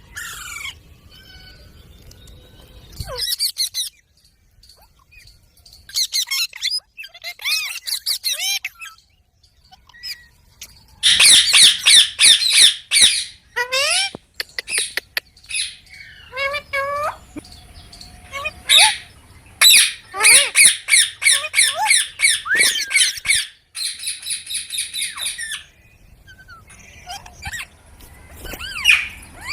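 Baby Indian ringneck parrot squawking: loud, shrill, rapid runs of calls in separate bouts, with quieter single calls in between.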